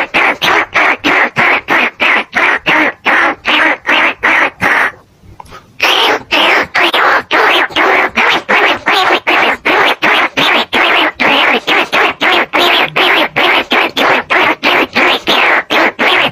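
Lure recording of bandicoot rat and field rat squeaks used to call rats in. Short harsh squeaks repeat evenly about three times a second, with a break of about a second a third of the way in.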